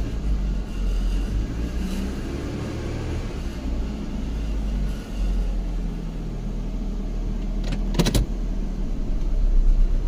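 2009 Hyundai Accent's 1.6-litre four-cylinder engine idling rough with a cylinder 1 misfire, a low, uneven rumble heard from inside the car. A short sharp clatter about eight seconds in.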